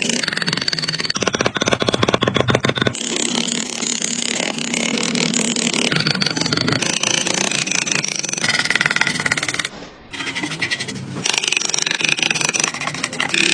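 Power-tool noise of wood being worked: motor-driven grinding and scraping whose pitch and texture change abruptly every couple of seconds, with a short drop in level about ten seconds in.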